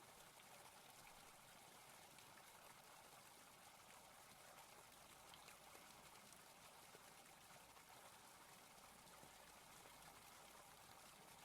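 Near silence with the microphone muted: only a faint, even hiss.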